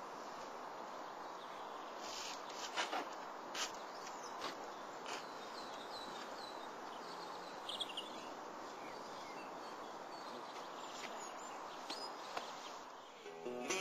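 Steady outdoor background noise with a few faint bird chirps and scattered light clicks and knocks.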